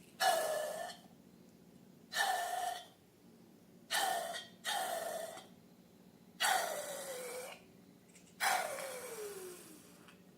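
Short bursts of air hissing, six times, each with a tone that slides downward; they fit air being let out of a balloon's neck.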